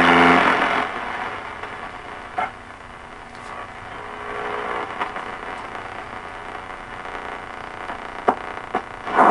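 Receiver output of a WWII BC-1306 vacuum-tube shortwave receiver being tuned through the 3.8–6.6 MHz band. A loud hissing, noise-like signal, which the operator takes for spread-spectrum transmission, fades within the first second as the dial moves off it. Softer static follows, with a faint tone about four seconds in and a few sharp clicks.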